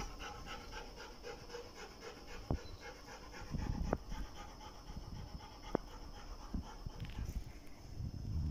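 A dog panting steadily, about four to five quick breaths a second, with a few sharp clicks now and then.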